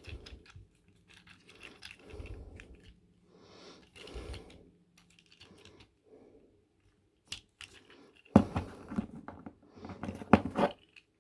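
Small plastic transforming toy being handled and folded through its hinges: scattered light clicks and rubbing of plastic parts, with a louder run of clicks and handling noise in the last few seconds.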